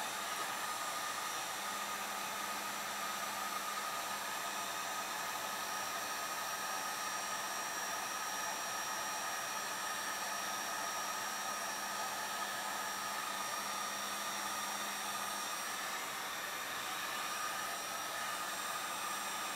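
Handheld electric heat gun running steadily: a constant rush of blown air with a thin steady whine on top, aimed at the 3D printer's unheated bed to warm it.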